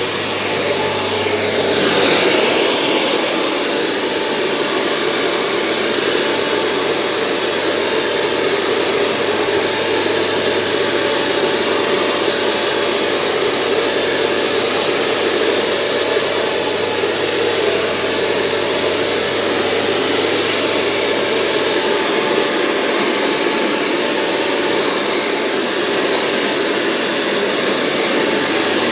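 Professional handheld hair dryer running steadily: a continuous rush of blown air with a faint steady motor whine.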